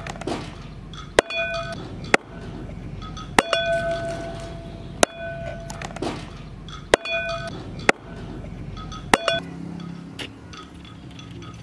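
Hand-forged steel cleaver chopping chicken on a wooden chopping board: seven sharp chops about a second apart, each leaving a brief metallic ring from the blade. The chopping stops about nine seconds in, leaving a low steady hum.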